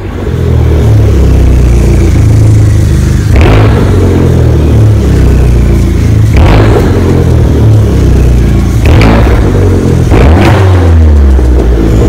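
A warm 2012 Fiat 500 Abarth's 1.4-litre turbocharged four-cylinder idles through its stock exhaust and is blipped four times, each rev rising sharply in pitch and dropping back to idle.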